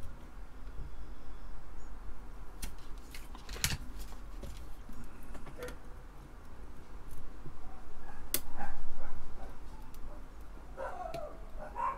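Flush cutters snipping component leads on a circuit board: a few sharp clicks, the loudest about eight seconds in. Near the end a dog yips and barks excitedly.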